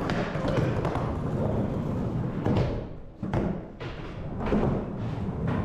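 Skateboard riding a plywood ramp: the wheels roll with a steady low rumble, the trucks scrape over the metal coping at the start, and several sharp thumps come as the board hits and drops back onto the ramp.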